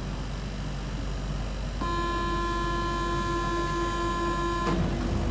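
Inside an MP05 Paris Métro train: a steady low rumble, then about two seconds in a constant-pitch buzzing tone with many overtones starts, holds for about three seconds and cuts off suddenly.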